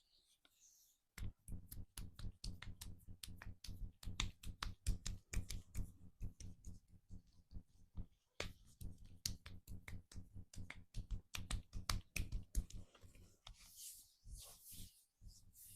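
Hands slapping a back in quick percussive massage strokes, many sharp strikes a second, each with a dull thud, pausing briefly about eight seconds in; the strikes give way to softer rubbing sounds near the end.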